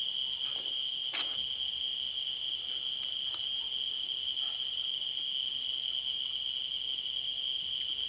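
Night insects giving one steady, unbroken high-pitched trill, with a couple of light clicks of cutlery against a plate.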